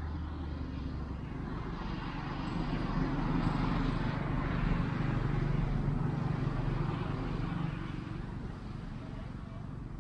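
A motor engine passing by: a steady low hum that builds up about two seconds in, stays loudest for several seconds, then fades near the end.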